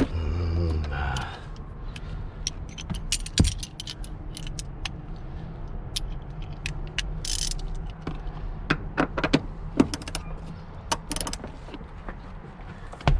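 Ratchet with a Torx 50 bit being worked on a rear seat belt anchor bolt: scattered metallic clicks and knocks, with a brief hiss about seven seconds in.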